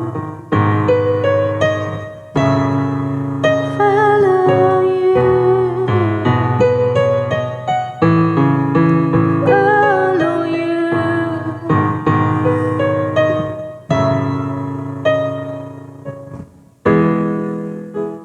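Piano-voiced keyboard playing slow, sustained chords under a simple melody line, each chord struck and left to fade: the instrumental close of a worship song.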